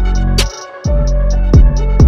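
Background music: an electronic beat with deep bass kicks that bend down in pitch, a sharp snare hit and quick hi-hat ticks. The bass drops out briefly about half a second in.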